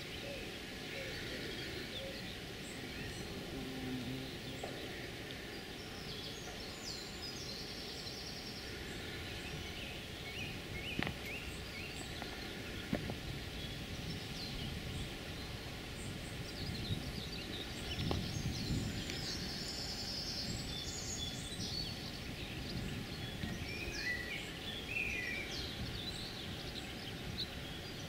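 Songbirds singing: scattered short chirps and a couple of brief high trills, over a steady low outdoor rumble.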